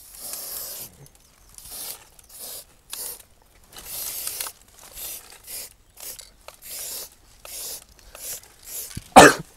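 Aerosol spray paint can hissing in a dozen or so short, irregular bursts as a line is sprayed on a wall, with one brief, much louder noise near the end.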